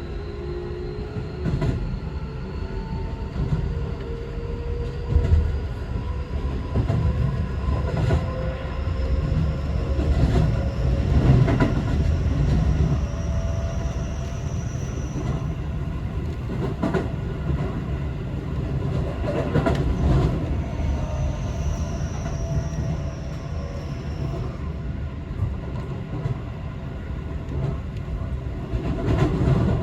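Keio Liner electric train running, heard from inside the carriage: a steady rumble of wheels on rails, with the electric motors' whine rising in pitch over the first fifteen seconds as the train gathers speed. A few short knocks from the track come through it.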